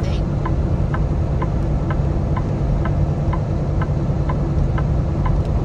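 Cab noise of a Kenworth T680 semi truck driving on the highway, a steady low engine and road rumble, with a sharp tick repeating evenly about twice a second.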